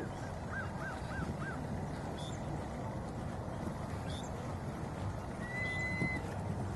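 Outdoor background with birds calling: a quick run of five rising-and-falling notes near the start, a few faint chirps, and one held whistled note near the end, over a steady low background noise.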